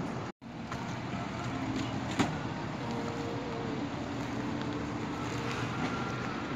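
Steady outdoor background noise with a distant road-traffic hum. The sound cuts out for a moment near the start, and there is a single sharp click a little over two seconds in.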